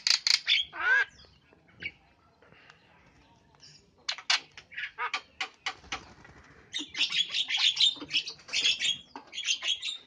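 Javan myna (jalak kebo) flapping its wings and calling: sharp clicks and squawks, a string of separate clicks a few seconds in, then dense chattering in the last three seconds.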